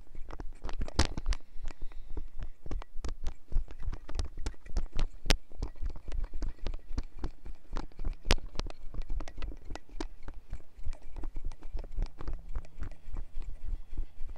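Clip-on lapel microphone and its dangling cable jostled by a body shaking and bobbing up and down: an irregular run of soft thumps, knocks and rubbing clicks, several a second.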